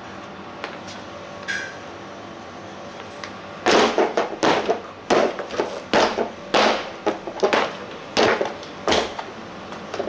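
A run of about ten sharp knocks or bangs, roughly two a second, lasting about five seconds, from something hard being struck or handled.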